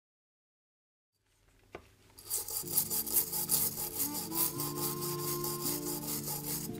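Silent at first, then from about two seconds in a brush scrubbing the corroded copper ashtray in its cleaning solution with quick, even strokes, several a second. Background music plays under it.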